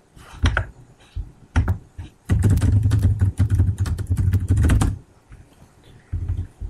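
Typing on a computer keyboard: a few separate key taps in the first two seconds, then a quick run of keystrokes lasting about two and a half seconds, and a brief tap or two near the end.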